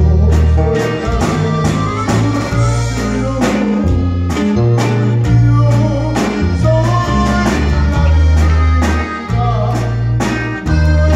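Live accordion-led band playing a song with acoustic guitar, electric bass and a drum kit. The music has a steady drum beat and prominent bass notes.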